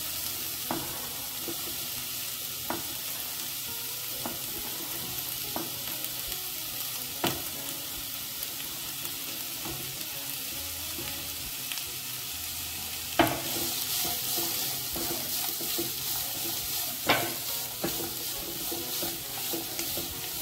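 Oil and chopped garlic sizzling in a nonstick frying pan as diced capsicum, carrot and cucumber are tipped in, with a few sharp knocks against the pan. The sizzle gets louder about two-thirds of the way through, and near the end the vegetables are stirred with a spatula.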